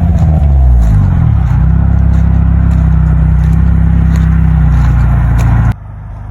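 Toyota MR2 GT's 2.0-litre turbocharged four-cylinder engine settling from a rev, its pitch falling over the first second or so, then idling steadily through a loud exhaust. The sound cuts off abruptly shortly before the end.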